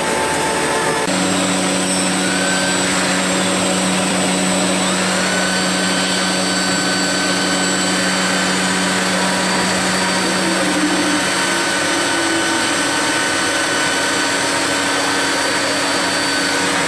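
CDMP2012A CNC plate drilling machine running with a loud, steady mechanical hum. A whine rises about five seconds in, holds steady, and drops away near the end.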